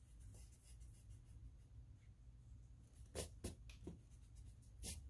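White block eraser rubbing pencil lines off paper. Faint at first, then a few short scratchy strokes from about three seconds in, with another near the end.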